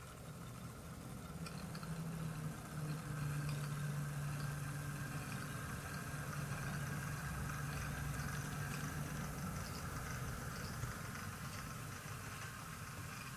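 Model railway locomotive running on the layout: a steady motor hum that builds over the first few seconds and holds, with light ticking of wheels on the track, easing off near the end.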